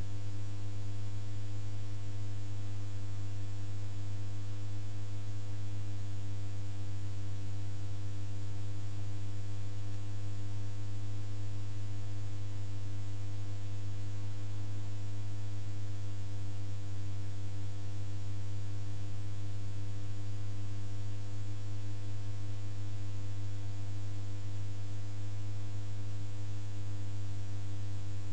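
A steady, unchanging low electrical hum over faint hiss, typical of mains hum picked up in the recording chain.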